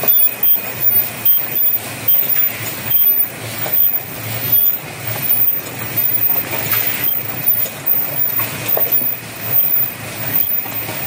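Automatic paper cup forming and packing machinery running: a steady mechanical clatter that pulses about twice a second, over a low hum and a thin steady whine.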